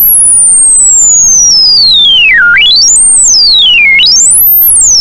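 A loud, pure sine-wave tone from a computer tone-generator simulation, swept in pitch as its frequency slider is dragged. It falls slowly from a very high whistle to a low point about halfway through, then swings quickly up and down twice more, climbing back to a very high pitch near the end.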